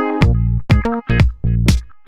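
Electronic dance music: a pulsing bass note on each beat, about two beats a second, with bright chords above.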